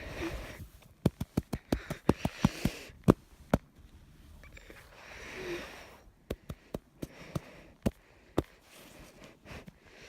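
A person breathing heavily close to the microphone, with two long breaths, one at the start and one about five seconds in. Two runs of sharp clicks come between and after them, about a dozen in quick succession from a second in, then about seven more from six seconds in; these clicks are the loudest sounds.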